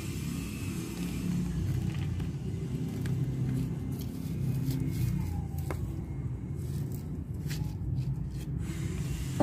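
A steady low rumble, with a few faint light clicks and scrapes from hands working potting soil around seedlings.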